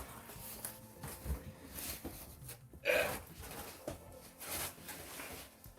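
Cardboard box and packaging being handled and moved: scattered rustles and scrapes, with a louder rustle about three seconds in.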